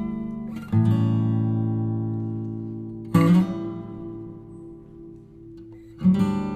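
Background music: strummed guitar chords. One chord is struck about a second in and another about three seconds in, each ringing out and fading, and several quick strums come near the end.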